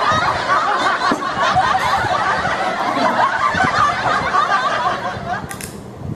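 A woman laughing, a long run of laughter that fades away about five seconds in, followed by a brief hiss near the end.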